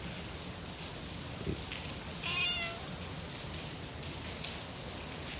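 A stray cat meows once, a short meow about two seconds in, over a steady background hiss.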